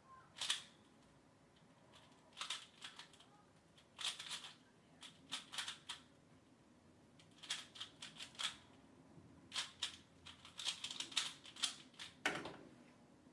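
3x3 Rubik's cube being turned fast by hand: irregular flurries of plastic clicks and clacks as the layers snap round, with a heavier knock about twelve seconds in.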